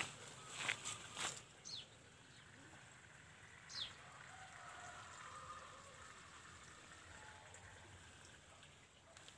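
Coffee-plant leaves and branches rustling and snapping a few times in the first second and a half as someone pushes through them. After that a quiet outdoor background, with two short, high, falling chirps about two seconds apart.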